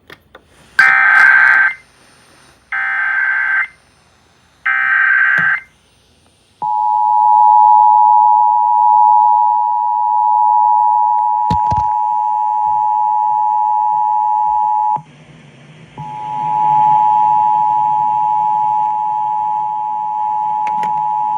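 Emergency Alert System header: three short bursts of warbling data tones, then the steady two-tone attention signal. The attention signal breaks off briefly about 15 seconds in and resumes over a background hiss and hum. It announces an incoming tornado warning.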